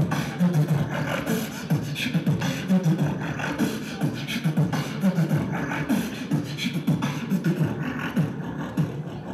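Hip-hop beat in the style of beatboxing: punchy, closely spaced kick and snare hits with a deep bass line.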